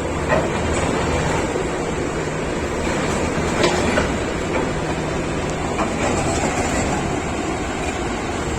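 SANY SY500H crawler excavator running with a steady diesel drone, broken by a few sharp metallic clanks, the loudest about three and a half to four seconds in.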